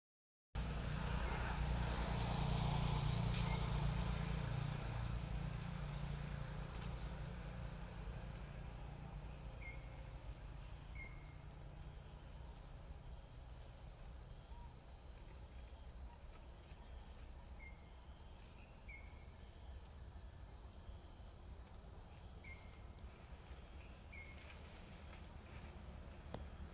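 Quiet forest ambience: a steady insect hum over a low rumble that fades during the first several seconds. Short high chirps come in pairs, three times.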